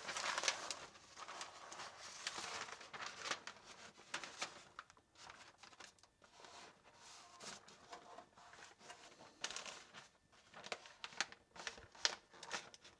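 Paper crinkling and rustling in irregular small crackles as it is pressed and creased by hand into a template.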